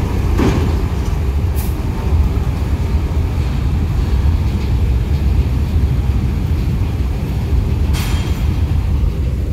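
Tour bus driving up a steel ferry ramp into the ship's car deck: a steady heavy low rumble, with a few short metallic clanks, one just after the start and a louder one near the end.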